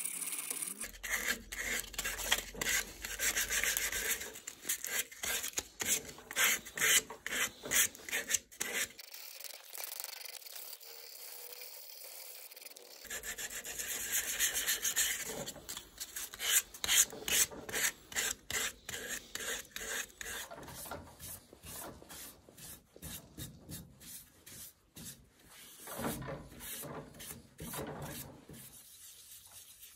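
Hand sanding of a turned wooden bowl held in a lathe chuck: sandpaper rasping over the wood in quick, repeated scratchy strokes.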